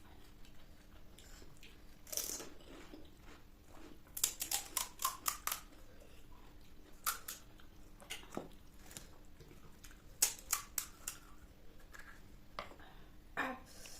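Crisp, crunchy chewing of panipuri shells and snacks: sharp crackling crunches come and go, with a quick run of them a little after four seconds in, and others around seven, ten and thirteen seconds in.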